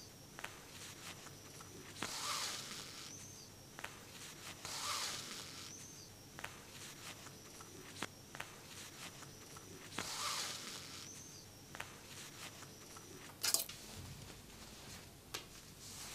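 Sewing thread pulled through denim by hand: a swishing draw three times, each trailing off in a thin high tone, among light taps and rustles of the fabric, with one sharp click near the end.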